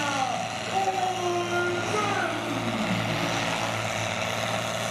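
Mercedes-Benz MB-trac tractor's diesel engine running steadily under load as it pulls a weight-transfer sled along a pulling track.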